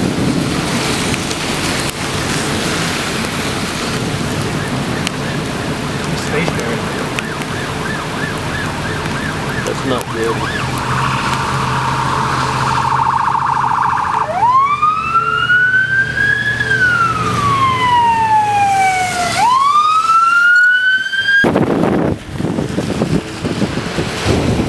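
Rain and wind noise, then an emergency vehicle siren. It starts with a fast warble, then sweeps up and slowly down in a wail, rises again and cuts off abruptly about three-quarters of the way through, leaving the rain noise.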